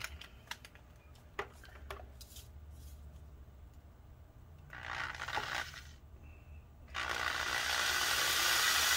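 Power drill with a larger bit boring into the plastic backing over a laptop fan's hub to reach the bearing. Small handling clicks come first, then a short burst about five seconds in, then the drill starts about seven seconds in and runs steadily.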